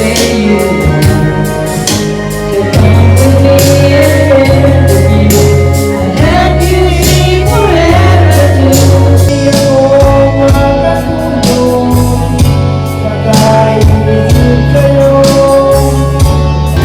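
Background music: a song with a singing voice over a steady beat of bass and drums.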